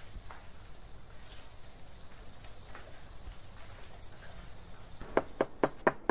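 Crickets chirping steadily as night ambience. About a second before the end come five quick, sharp knocks on a wooden door.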